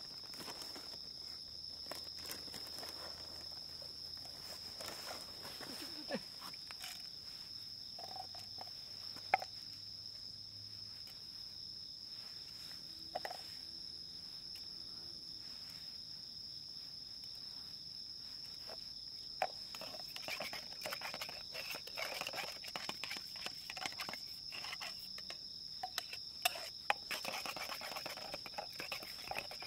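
Crickets trilling steadily in one high, unbroken tone, with scattered clicks and rustling that grow busier about two-thirds of the way in.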